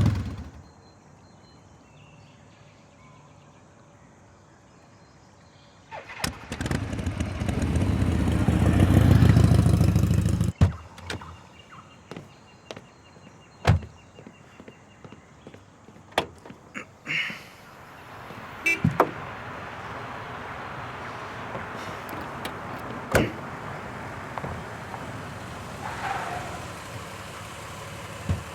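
A motor vehicle runs loudly for about four seconds starting some six seconds in, then cuts off sharply. A scatter of sharp knocks and clicks follows, and then a steady background noise.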